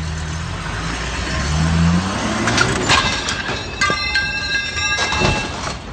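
Tow truck's diesel engine running, then revving up as the truck pulls away. It is followed by knocks and, about four seconds in, a high metallic squeal lasting about a second.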